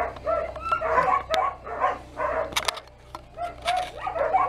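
Small dogs barking and yipping during rough play, a quick series of short high-pitched calls at about two a second.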